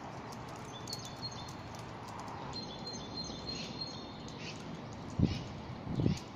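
Small birds chirping in short high notes over steady outdoor background noise, with two low thumps near the end.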